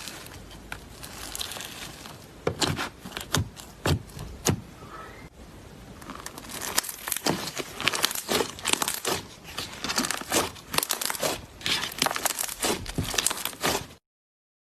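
Slime being played with, giving irregular sticky pops and crackling clicks. It stops abruptly near the end.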